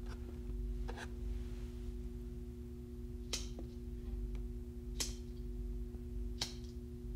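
A Bic lighter flicked about four times, each a short, sharp click a second or two apart, over a faint steady hum.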